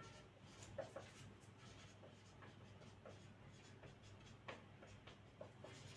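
Marker pen writing on a whiteboard: faint, irregular short strokes and taps as an equation is written out.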